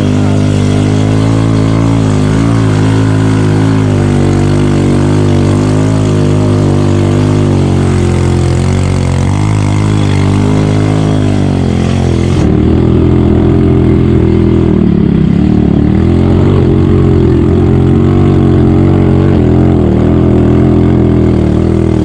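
Small motorbike engine heard from on the bike as it climbs a steep, rough track, its pitch rising and falling with the throttle. About halfway through the sound changes abruptly, becoming a little louder and duller.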